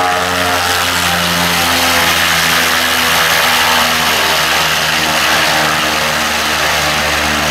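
Pilatus PC-6 Porter's turboprop engine and propeller running on the ground: a steady, loud drone with a whine, its tones drifting slightly in pitch.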